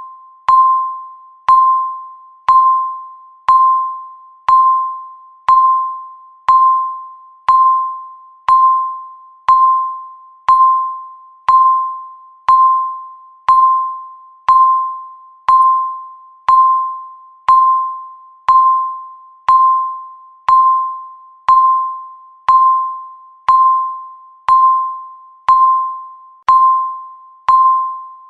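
Countdown timer's electronic beep sounding once every second, steady and even: a single clear tone with a sharp start that fades away before the next one, like a small chime, marking each second ticking down.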